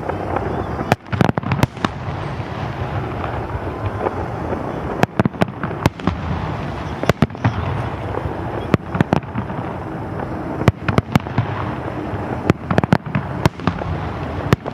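Fireworks bursting: clusters of sharp bangs and crackles every second or two, over a continuous rumble of their echoes rolling back off the mountains.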